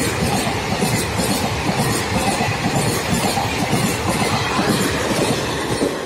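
Duronto Express passenger coaches passing close at speed: a loud, steady rush of steel wheels on rail with a quick, regular clatter as the wheels cross the rail joints.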